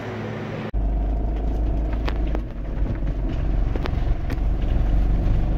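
Camper van's engine running from inside the cab as it pulls away: a steady low rumble with a few sharp clicks scattered through it.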